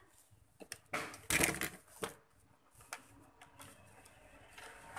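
Handling of electronic power supply parts: a few sharp clicks and knocks, with a louder clatter about a second and a half in.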